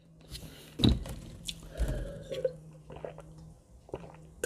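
Close-miked mouth sounds of eating: chewing and small smacking clicks, with a couple of low bumps about one and two seconds in, over a faint steady hum.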